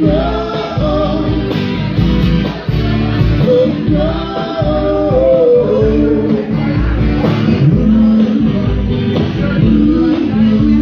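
Live acoustic music: a man singing over a strummed acoustic guitar and a hand drum keeping a steady beat.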